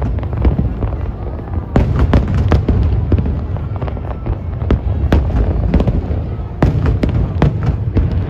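Aerial fireworks display: a dense run of sharp bangs and crackles over a continuous low rumble of booms, with the busiest clusters about two seconds in and again near seven seconds.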